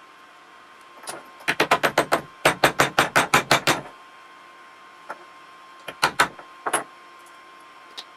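Two quick runs of sharp, evenly spaced clicks, about seven a second, then a few single clicks and knocks, from small hand tools and metal parts being worked on the RC truck's front hub.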